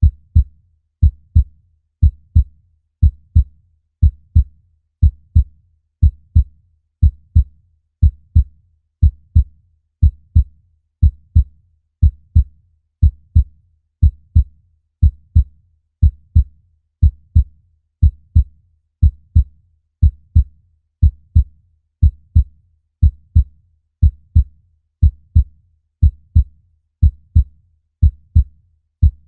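Human heartbeat: a steady lub-dub double thump, low in pitch, repeating about once a second.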